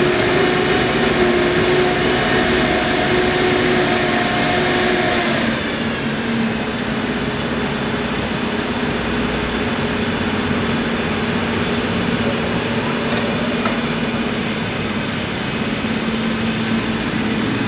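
Toyota 8FG25 forklift's engine running at raised revs while the hydraulics work the mast. About five seconds in, it drops back to a steady lower idle that runs on, with a faint higher whine coming back near the end.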